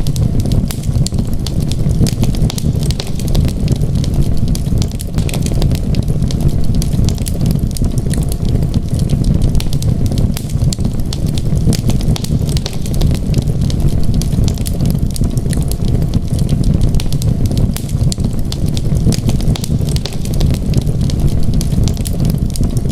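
Wood fire crackling, with frequent small sharp pops over a steady low rumble of flames.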